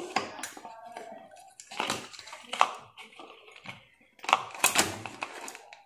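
Handling noise from old ceiling fan parts being fitted together by hand, the downrod going onto the motor's mount: irregular clicks, knocks and rustling, with the sharpest knocks about two seconds in and around four and a half seconds in.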